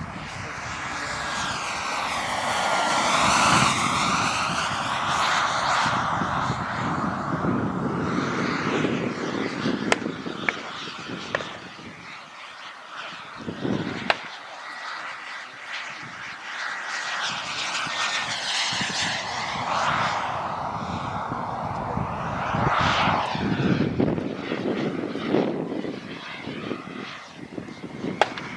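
Wren 54 model turbojet of a radio-controlled Boomerang Nano jet running in flight: a steady jet rush with a thin high whine on top, swelling as the jet passes close about three seconds in, dropping away in the middle as it flies off, and swelling again for another pass near twenty-three seconds.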